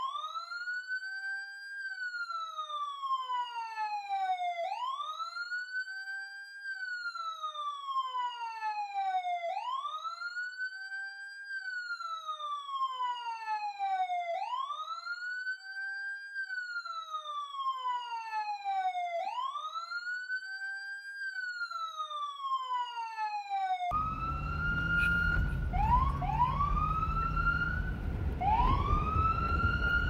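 Police siren wailing: a quick rise to a high pitch, a brief hold, then a long falling glide, repeating about every five seconds. Near the end it cuts abruptly to a noisier siren recording with a low rumble behind it, its tone rising and holding high.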